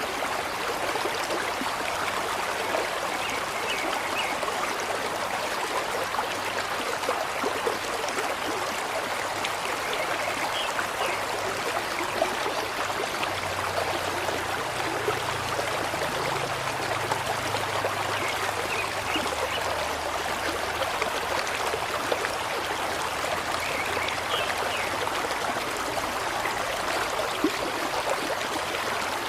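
Steady running water, like a stream flowing and trickling.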